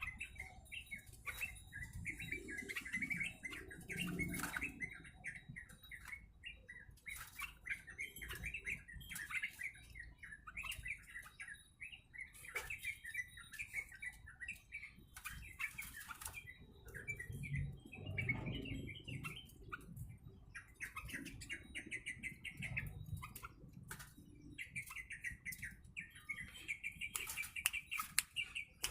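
Caged trucuk bird (yellow-vented bulbul) chirping in quick, busy runs, with wing flutters and scattered sharp clicks throughout.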